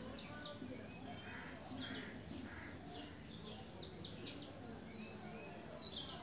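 Small birds chirping repeatedly in short, quick downward-sweeping calls.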